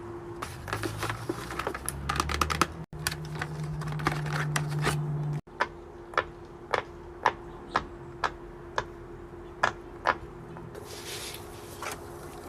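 Small plastic fidget toys clicking: a quick run of rapid clicks, then single sharp clicks about twice a second.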